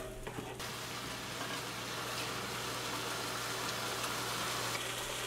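Tomato sauce sizzling steadily in a frying pan, an even hiss, with a faint steady low hum beneath.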